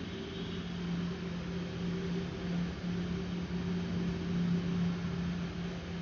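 A steady low hum with a faint overtone over constant hiss, like an electrical appliance or motor running.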